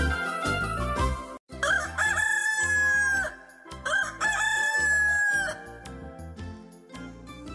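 A rooster crowing twice, each crow a long held call lasting over a second. It comes in after a song's closing notes cut off, and soft tinkling music follows.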